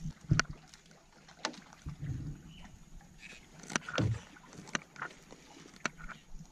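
Scattered knocks and thumps on a small boat's hull, about eight over a few seconds, as freshly netted fish are handled and dropped in the bottom of the boat.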